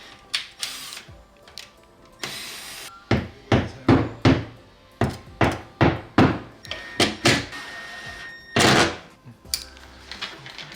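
A run of sharp knocks, about two to three a second, then one louder knock near the end, over background music.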